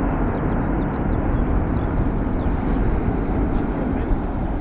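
Jet aircraft engines at takeoff power during the takeoff roll: a steady, loud, deep roar.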